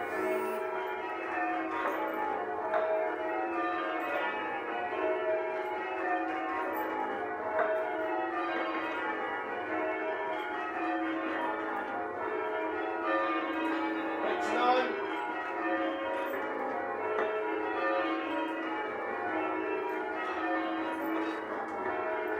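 Church bells being change-rung: a ring of tower bells struck one after another in a steady, unbroken run, their tones overlapping.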